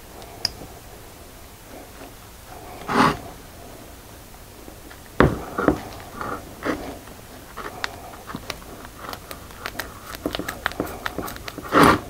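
Small metal clicks and knocks as a brake caliper bracket and its greased slide pin are handled with gloved hands on a workbench. There is a sharp knock about five seconds in, a run of quick light clicks near the end, and two short puffs of breath-like noise, one about three seconds in and one at the very end.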